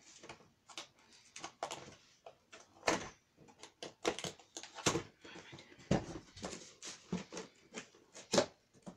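Cardboard box and packaging being opened and handled by hand: a run of irregular rustles and clicks, with a sharper snap near the end.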